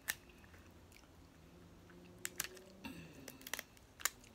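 Snow crab leg shells cracking and snapping as they are broken open by hand: a handful of short, sharp cracks, the loudest just after the start and about four seconds in, with a cluster of smaller snaps in between.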